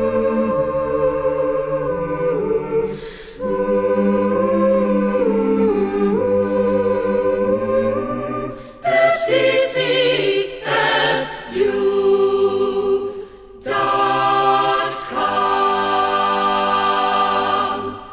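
A choir sings long held chords in harmony, with a few short breaks between them. The last chord fades away at the end.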